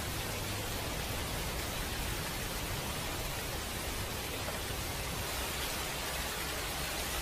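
Steady, even hiss of the recording's background noise with a faint low hum underneath; no distinct eating or drinking sounds.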